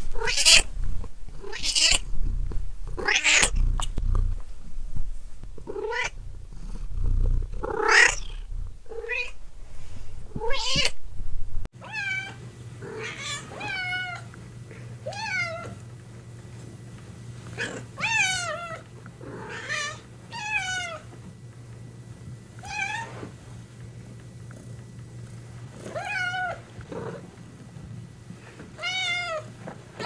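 Domestic cats meowing, call after call. In the first part the meows are loud and rough over a low rumble. About twelve seconds in it cuts to cleaner, drawn-out meows that drop in pitch at the end, one every second or two, over a faint steady hum.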